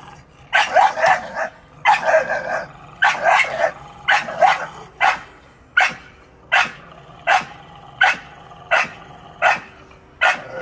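Dog barking repeatedly: quick bursts of two to four barks through the first half, then single barks about every three-quarters of a second.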